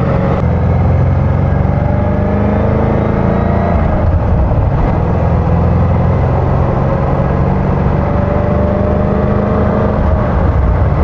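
Ford Mustang's engine heard from inside the cabin while driving: its pitch climbs steadily for the first few seconds, drops about four seconds in, then holds a steady cruising drone over road noise.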